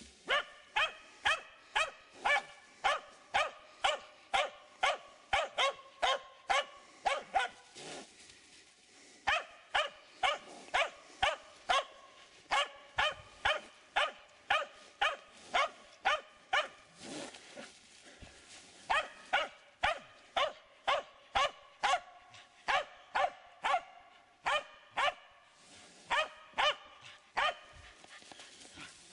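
Finnish Spitz bay-barking at game hidden in cover: quick, sharp, ringing barks about three a second, in long runs broken by a few short pauses.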